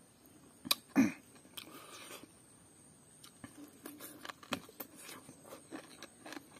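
Close-up eating sounds of a person biting and chewing pork on the bone. There is a loud mouth sound about a second in, then a run of small, irregular chewing clicks.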